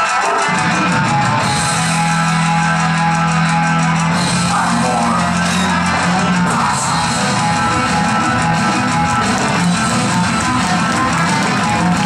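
Rock music with guitar; the bass and drums come in about half a second in.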